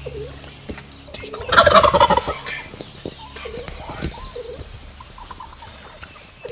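Wild turkey gobbler gobbling once, a loud call about a second and a half in that lasts about a second.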